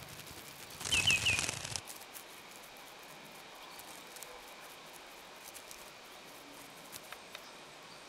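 A small bird gives three quick chirps, each falling in pitch, over a brief hiss about a second in. After that there is faint open-air ambience with a few scattered soft ticks.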